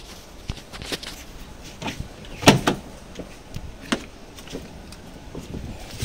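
Car door of a Volkswagen Vento being opened and shut: a sharp double clunk about two and a half seconds in and another knock near four seconds, with scattered smaller knocks and handling noise around them.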